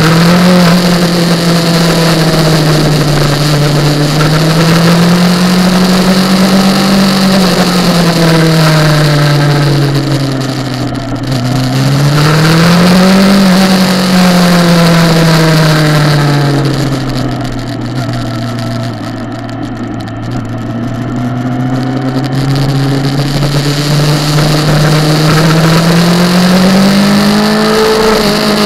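Kawasaki ZX-10R's inline-four engine heard from an onboard camera on the bike, revs climbing under throttle and dropping off again several times as it laps the track. There is a quieter, lower-revving stretch in the middle, and the revs climb again near the end.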